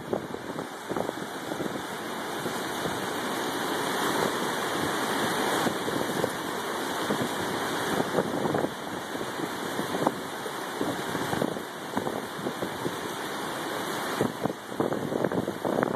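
Flood-swollen muddy water rushing and churning down the concrete steps of a fish ladder, a steady loud rush of water.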